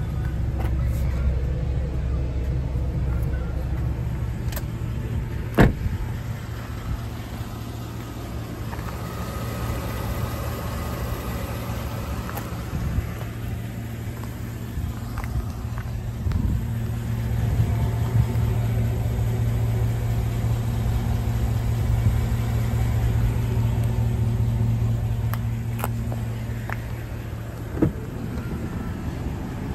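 2019 Chevrolet 3500HD's gas V8 engine idling steadily, a low even hum. A sharp click about six seconds in, and another near the end as the door handle is pulled.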